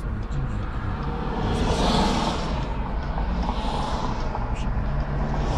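Steady low hum of a car cabin in city traffic, with two swelling whooshes about two and four seconds in.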